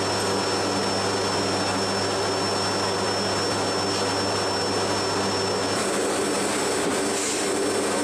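Steady drone of a KC-130J Hercules's turboprop engines and propellers heard from inside the cargo hold in flight: a constant deep hum under a broad roar, with a thin high whine that drops out about six seconds in.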